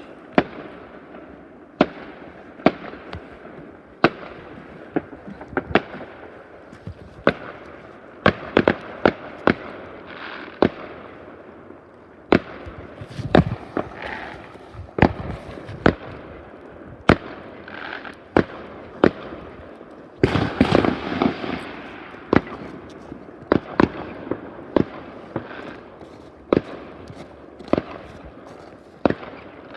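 Fireworks going off all around: a steady run of sharp bangs, irregular and at times several a second, over a continuous background of distant explosions. About twenty seconds in there is a denser burst of rapid crackling bangs.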